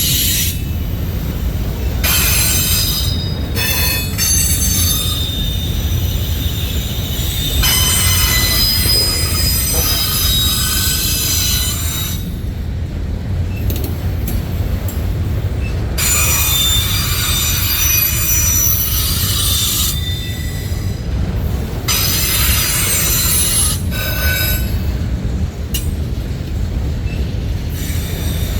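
Freight train cars rolling past with a steady low rumble. Wheel flanges squeal on the rails in spells of several seconds, stopping and starting again.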